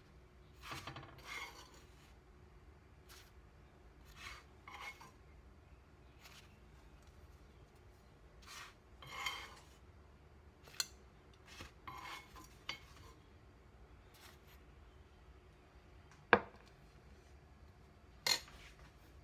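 A metal spatula scraping and clinking against a non-stick frying pan as pastries are lifted out, in short scrapes with scattered sharp clicks. Near the end comes one loud sharp knock, then another.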